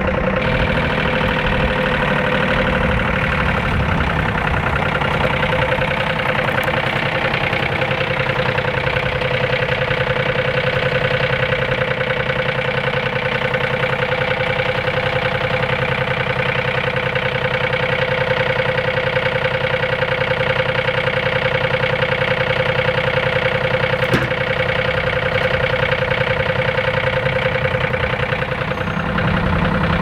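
An RK compact tractor's diesel engine running steadily while its front-loader grapple carries a log.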